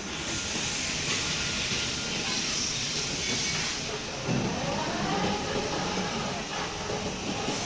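CNC angle-steel punching line running: a steady hiss of machinery, with a thump a little over four seconds in, followed by a whine that rises and falls for about two seconds.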